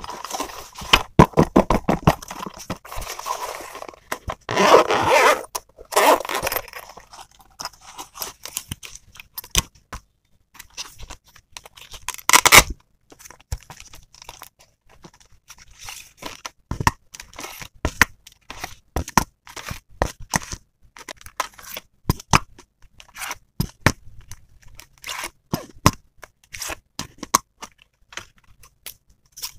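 Close-up handling of a hard-shell pencil case and a plastic-wrapped pack of twist crayons: a stream of fingernail taps, scrapes and plastic crinkles. Louder bursts come about five, six and twelve seconds in.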